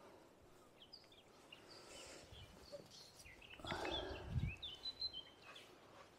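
Small birds singing in the background, a scatter of short chirps and whistles, with a brief louder rustling thump about two-thirds of the way through.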